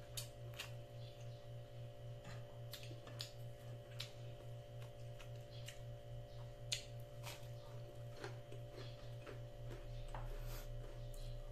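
Close-up eating sounds of a person chewing with his mouth full: irregular soft clicks and smacks of the mouth and lips, over a steady low hum.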